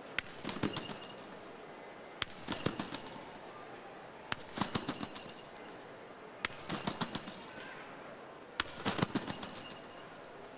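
A string-bed competition trampoline rattling and clanking at each landing as a gymnast bounces high. There is a burst of quick metallic clicks about every two seconds, five times, over a faint arena hum.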